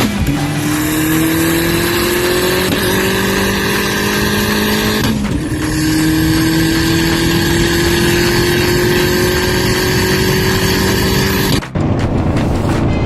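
Car engine accelerating hard at full throttle, its pitch climbing steadily and dropping quickly at upshifts about 2.5 and 5 seconds in, then pulling through a long gear. The sound breaks off abruptly near the end.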